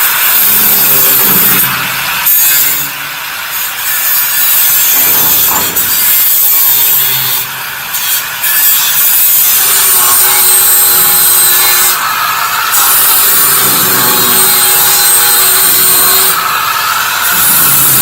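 Power tool grinding sheet steel in long continuous passes, with a high motor whine over a harsh rasping noise and brief dips as the tool is eased off the metal.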